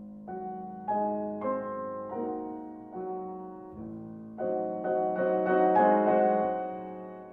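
Piano music: slow chords, each struck and left to fade, over a held low note.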